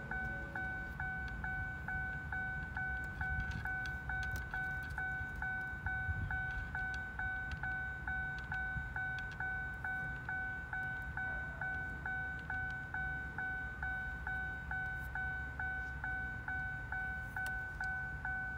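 Chevrolet Equinox dashboard warning chime repeating rapidly and evenly, a few chimes a second on one steady pitch.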